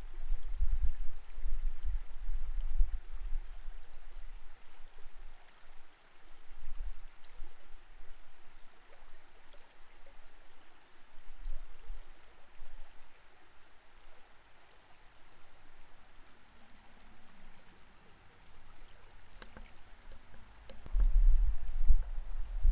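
Creek water as heard by an underwater camera: irregular low rumbling and buffeting from the current against the housing, over a faint steady hiss. The rumbling is strongest near the start and again near the end.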